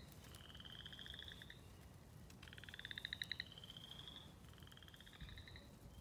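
A faint chorus of frogs calling from the wetland: repeated pulsed trills, each about a second long, with two or more voices overlapping, some rising slightly in pitch.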